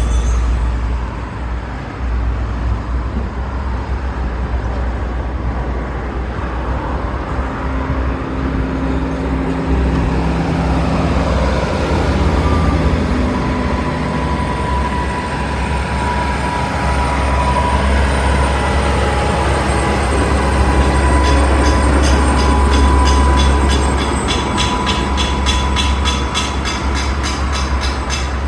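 Steady low rumble of a moving vehicle. In the last several seconds a run of evenly spaced clicks, a few a second, joins it.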